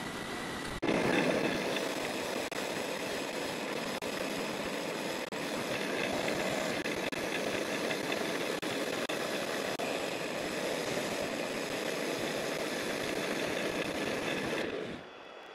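A hand-held pad rubbing against the inside of a large ash bowl as it spins on a wood lathe, a steady rushing friction noise over the lathe motor's hum. The rubbing starts suddenly about a second in and stops about a second before the end, leaving the quieter hum of the running lathe.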